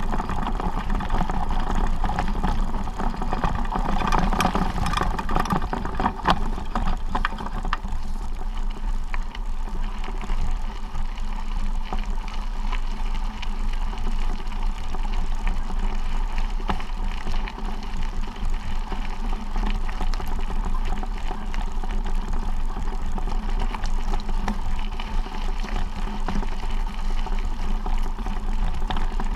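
Steady wind and movement rumble on a body-worn camera's microphone as a hiker walks. A few sharper steps on stone come through between about four and seven seconds in.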